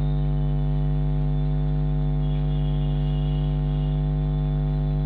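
Steady electrical mains hum: a low, even buzz with a stack of overtones, unchanging throughout.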